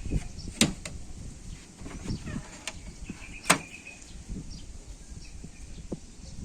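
Two sharp clicks or knocks about three seconds apart, among several quieter knocks.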